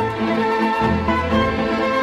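Orchestral music led by strings, with sustained notes over a pulsing bass.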